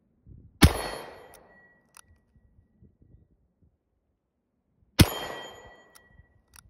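Colt Trooper .357 revolver fired twice, about four seconds apart. Each shot is followed by an echo that fades over about a second, with a faint ringing tone in it.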